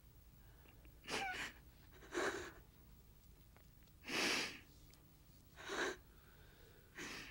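A person's breathing: five short breathy sounds, the one about four seconds in the loudest.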